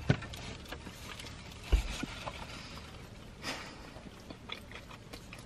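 Two people eating sub sandwiches: soft chewing and handling sounds with scattered small clicks, and one low thump just under two seconds in.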